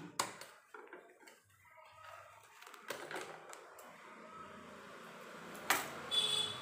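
Scattered light clicks and rustles of handling at a sewing machine that is not running, as the thread is snipped with scissors. Near the end comes a sharp clack with a brief ringing rattle as the scissors are laid on the machine's metal bed.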